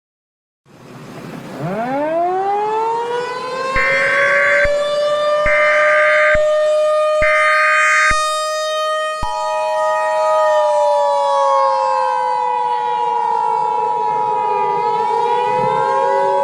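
A civil defense siren winds up into a rising wail, its pitch sagging and climbing again near the end. Over it come three short bursts of Emergency Alert System header data tones, then, from about nine seconds in, the steady two-tone EAS attention signal.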